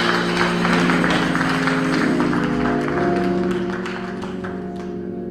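Held instrumental chords ringing on as a gospel song ends, with congregation clapping over the first couple of seconds, then fading.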